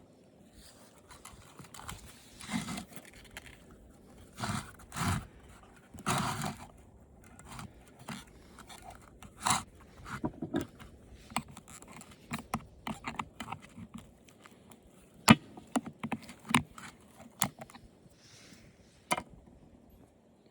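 Hands and tools prying at the plastic and wire parts of an old television: irregular scraping and crunching with many sharp clicks and snaps, a few longer scrapes in the first six seconds.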